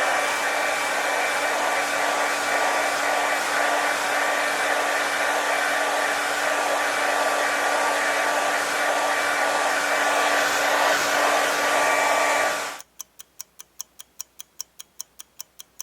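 Hair dryer blowing steadily, a rush of air with a steady whine through it, cutting off about thirteen seconds in. Then clock-like timer ticking, about four ticks a second.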